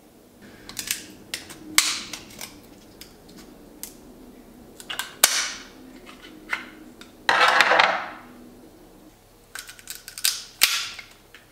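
American lobster shell being cracked and broken apart by hand: a scattered series of sharp cracks and snaps, with a longer crunching break about seven seconds in.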